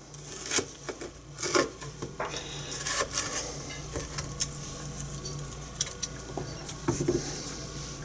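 Kitchen knife cutting and scraping the white pith out of red bell pepper rings on a wooden cutting board: scattered taps and scrapes of the blade against the board.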